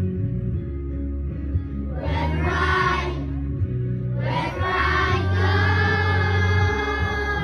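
A group singing over a backing track with a steady bass line. Sung phrases swell in about two seconds in and again about four and a half seconds in.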